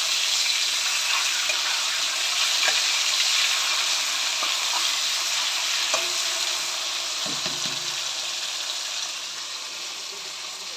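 Hot oil sizzling steadily in a wok as turmeric-coated pieces fry, with a few short scrapes and knocks of a spatula against the pan. The sizzle eases off over the second half.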